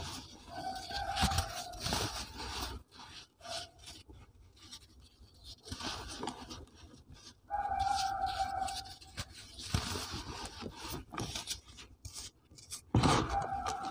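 Soft, powdery chalk-like blocks crushed and crumbled by hand, crunching and rubbing as they break apart, with loose powder raked and sifted in the tub. A steady high tone comes and goes throughout, loudest about eight seconds in.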